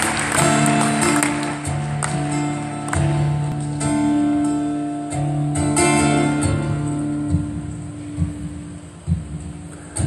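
Live concert music over an arena sound system: a guitar playing a slow song intro, held notes ringing out one after another, heard from the audience. It gets somewhat quieter in the last few seconds.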